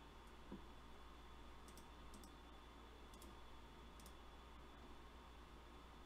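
Near silence: about five faint computer mouse clicks, some in quick pairs, over a low steady electrical hum.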